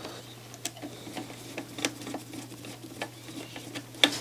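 Small screwdriver working a screw at the sheet-metal rear panel of a CD player: scattered light clicks and scrapes, the loudest just before the end, over a faint steady hum.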